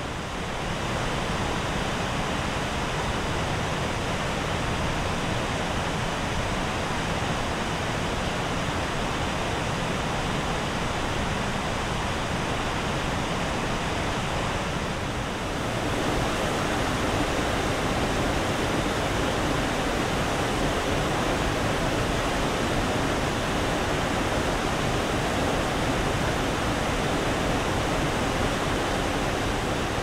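Steady rushing of falling water from the Veliki Sumik waterfall on the Lobnica stream. It gets a little louder about halfway through.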